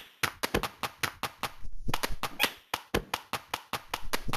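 A quick, uneven series of sharp knocks or taps, several a second.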